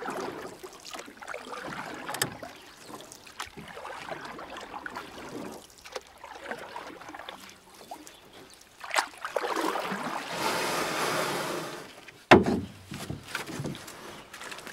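Canoe paddling on a lake: irregular water swishes and splashes with scattered light knocks, a louder rush of water about ten seconds in and a sharp knock just after.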